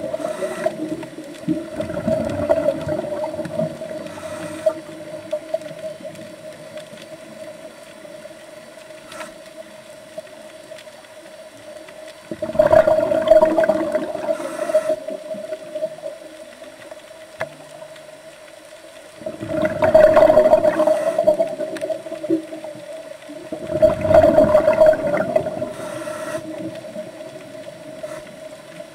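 Underwater sound: a scuba diver exhaling, with bubbles rushing past the camera in bursts of two to three seconds, four times, at breath-like intervals. A steady hum runs under the bursts.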